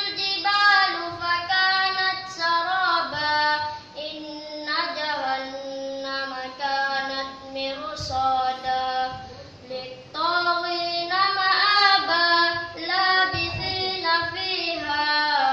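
A boy's voice chanting Quranic recitation in melodic tajwid style, with long held notes and ornamented turns between them. There is a short breath pause about ten seconds in.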